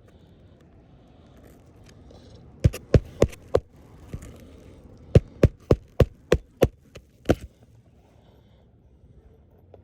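A series of sharp knocks: four in quick succession, then after a short pause about seven more at roughly three a second.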